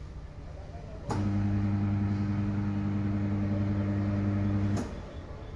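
Electric motor of a tyre-changing machine running with a steady low hum. It switches on with a click about a second in and cuts off with a click near the end.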